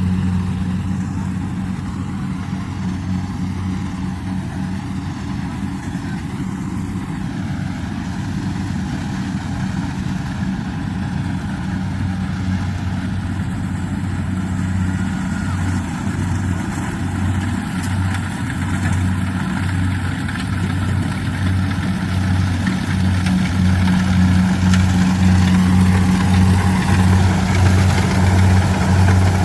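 Kubota rice combine harvester's diesel engine running steadily with a low hum, growing louder over the last few seconds.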